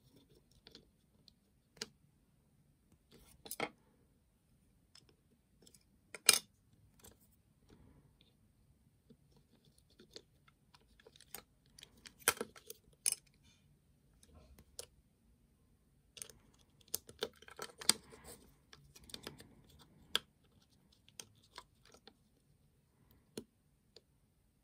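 Irregular clicks and taps of small plastic parts as a battery-powered toy train model is handled and checked, with a few louder knocks about 6, 12 and 18 seconds in.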